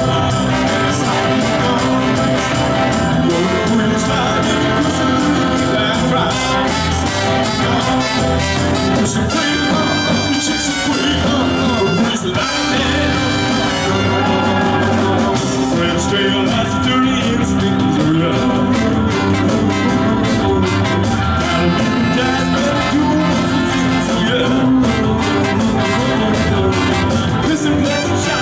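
Live band with keyboard playing an uptempo rock and roll instrumental section.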